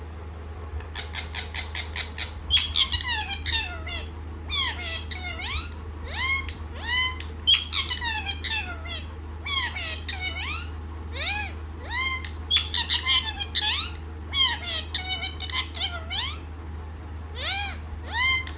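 Pet parrot calling in quick runs of short, high, arching squawks, several in a row with brief pauses between the runs, over a steady low hum.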